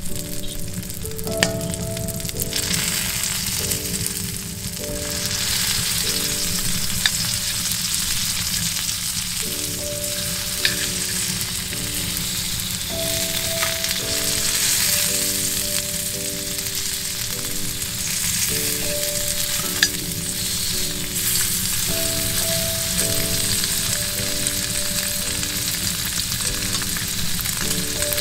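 Thick fried tofu sizzling steadily in hot oil on an iron griddle plate heated on a wood stove, with a few sharp pops along the way. Soft background music with a simple melody plays under it.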